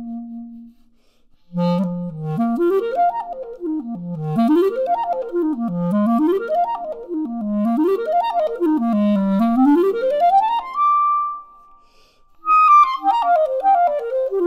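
Solo clarinet fitted with a Carbonissimo carbon fiber barrel, played as a sound test. After a short pause it plays quick runs sweeping up and down through its range about four times, holds one long high note, breaks off briefly, then starts a falling passage near the end.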